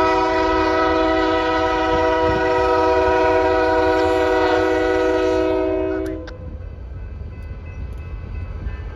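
Union Pacific maintenance-of-way train's locomotive air horn blowing one long, steady chord of several notes at a grade crossing. It cuts off about six seconds in, leaving the low rumble of the train rolling through.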